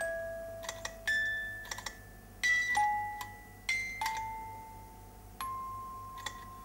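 About seven struck, chime-like notes ring out one after another, each at a different pitch, starting with a sharp tap and fading slowly. A few lighter clicks fall between them.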